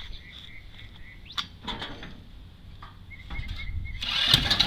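Birds chirping; about four seconds in, the GY6 engine's electric starter starts cranking and the engine turns over without firing. The engine won't start, which the owner suspects comes from the carburettor or clogged fuel lines.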